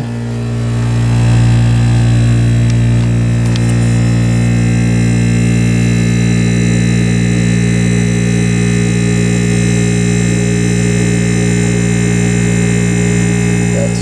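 Vintage Westinghouse 5,000 BTU window air conditioner running, its R22 reciprocating compressor and fan giving a steady, loud hum with a low drone and a hiss of moving air. The hum swells over the first second or two, then holds even. The unit is cooling properly, blowing ice-cold air.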